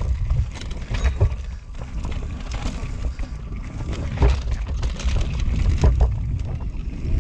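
Full-suspension carbon enduro mountain bike ridden fast down rooty, rocky singletrack: steady tyre and wind rumble with a clatter of knocks as the bike hits rocks and roots, the hardest knocks about a second in, and around four and six seconds in.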